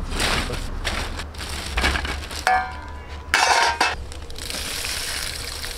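Clinking and rattling of hard objects. A ringing clink comes about two and a half seconds in, followed by a louder, brief rattle.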